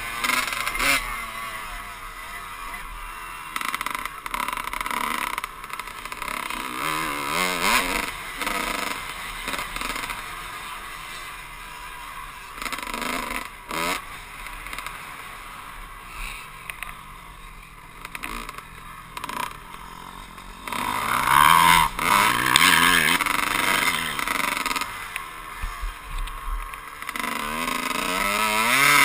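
Dirt bike engine running under the rider, heard from the helmet, its revs rising and falling as the bike is ridden along a rough dirt track. It stays quieter through the middle, then revs harder about two-thirds of the way through and again near the end.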